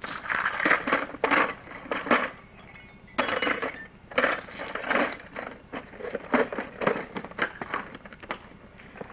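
Tools clinking and rattling as a hand rummages through a toolbox, in uneven bursts of sharp metallic clicks, with a lull about two and a half seconds in.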